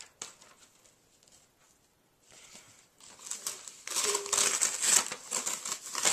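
White tissue paper crinkling and rustling as it is pulled out of a gift by hand. It starts about two seconds in and is loudest in the second half.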